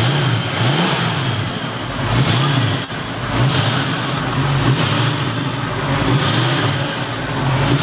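A 1967 Ford Mustang's 302 V8 running and being revved lightly over and over, its pitch rising and falling with each blip of the throttle.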